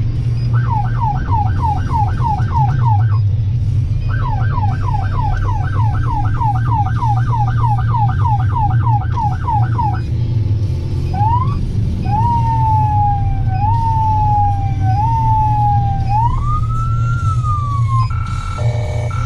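Emergency vehicle's electronic siren on a fast yelp, about four sweeps a second, with a short break about three seconds in. From about eleven seconds it changes to slower sweeps that rise sharply and fall away, and near the end to a different stepped tone. A steady low engine and road rumble runs underneath.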